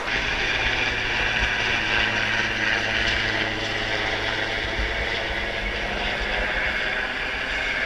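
Helicopter flying overhead: a steady engine and rotor sound.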